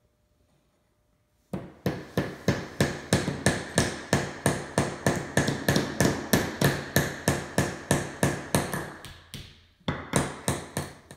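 Small claw hammer tapping a nail into a wooden wheel in quick, even strokes, about four a second, with a light metallic ring under the taps. The tapping starts about a second and a half in, pauses briefly near the end, then resumes for a few more taps.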